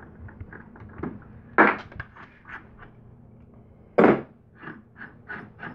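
Metal clinks and knocks as an old keyed drill chuck is spun off the drill's output shaft by hand and handled on a wooden workbench: two sharp knocks, about a second and a half in and again about four seconds in, with lighter ticks and taps between and after.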